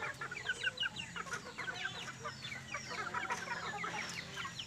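Chickens clucking and chirping: many short, high, overlapping calls, with a low steady hum underneath.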